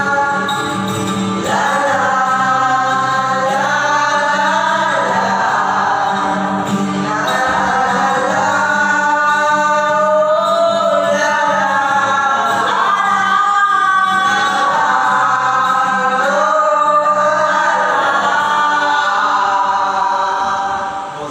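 Several young male voices singing together in harmony, holding long notes, with an acoustic guitar strummed underneath. The singing trails off near the end.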